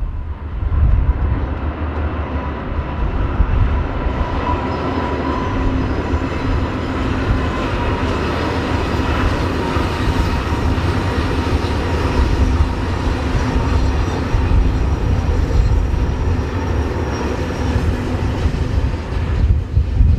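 Freight train passing close by: a steady, heavy rumble of the train running on the track, with no change in pace.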